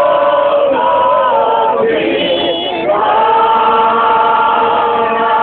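A group of voices singing a traditional Bosnian village folk song (izvorna) in long drawn-out held notes. The first phrase breaks off about two seconds in, and a new long held chord begins about a second later.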